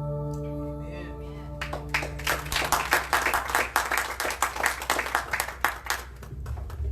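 The final held chord of a worship song fades out, then a congregation applauds for about five seconds before the clapping dies away.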